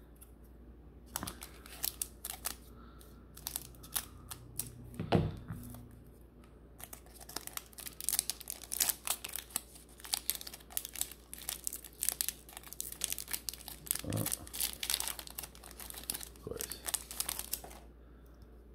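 Foil Pokémon booster pack wrapper crinkled and torn open by hand, then the cards pulled out; irregular crackles, sparse at first and much denser in the second half, with a couple of soft thumps.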